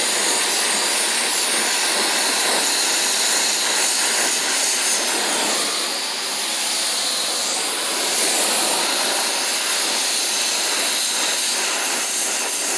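Oxy-acetylene torch flame hissing steadily as it heats a copper-to-steel joint for silver brazing, dipping slightly about six seconds in.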